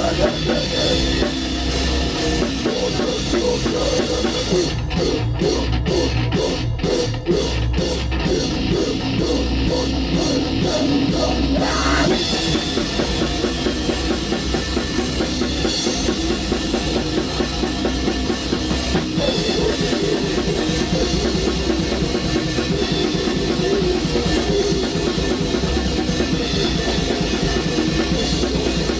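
Black metal band playing live at practice, with a drum kit and a pounding bass drum. For a stretch in the middle the cymbal wash drops out and evenly spaced hits stand out, then the full band comes back in.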